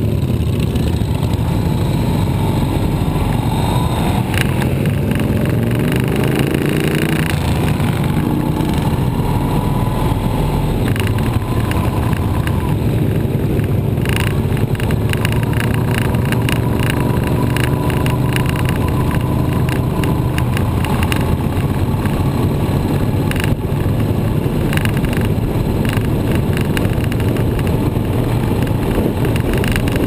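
Motorcycle engine pulling away and rising in pitch through the gears over the first several seconds, then running steadily at cruising speed, with heavy wind rush on the bike-mounted camera's microphone.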